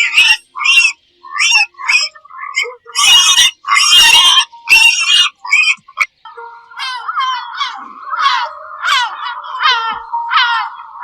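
A run of short, loud animal calls in quick succession, giving way about six seconds in to rapid repeated chirps that rise and fall over a steady tone.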